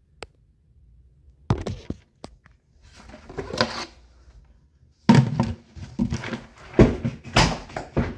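Dried roasted chestnuts clattering and knocking inside a plastic bucket as it is shaken hard, to crack and break up their shells. A few separate knocks at first, then dense, loud rattling from about five seconds in.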